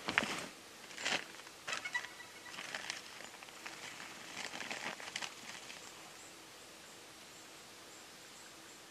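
Faint crinkling, rustling and small clicks of hands handling fishing tackle and shifting on stones while a hook is baited. The small sounds thin out after about five seconds, leaving a quiet outdoor background.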